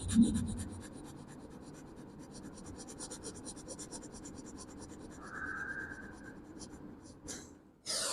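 Rapid short breaths through the nose, in and out several times a second in an even rhythm, stopping near the end: a fast breathing exercise used to clear the lungs of wheezing.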